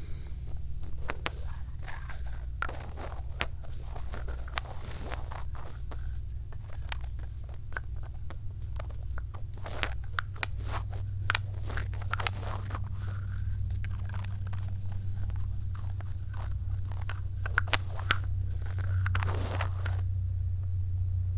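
Close-up ASMR trigger sounds on a binaural microphone: irregular scratching with many sharp little clicks, over a steady low hum.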